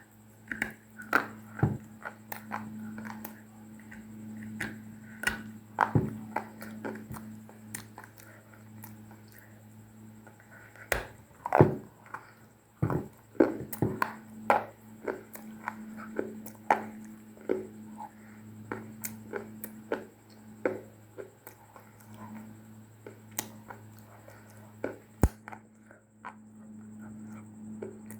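Dry clay crunching in irregular sharp cracks and crackles, loudest about halfway through, over a steady low electrical hum.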